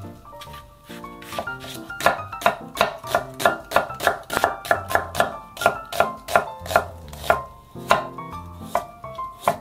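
Chef's knife slicing through an onion and then a carrot on a wooden cutting board, the blade knocking the board about three times a second, with a short pause near the end before the cuts resume.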